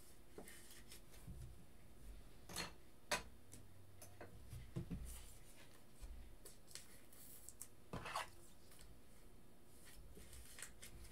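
Quiet room tone with a few faint, short clicks and taps scattered over several seconds, as of small objects being handled at a desk.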